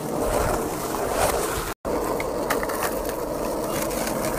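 Skateboard wheels rolling on rough pavement, a steady rolling noise that cuts out for a moment about two seconds in, then rolls on with a few sharp clicks.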